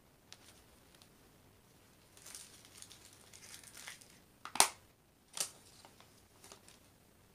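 Small plastic baggie of diamond-painting drills crinkling as it is handled and opened. About halfway through come two sharp plastic clicks less than a second apart, then a few softer taps, from the clear plastic drill storage case.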